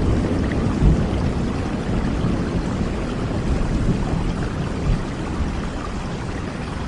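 Steady rain falling, with a low rumble underneath that eases off over the first couple of seconds.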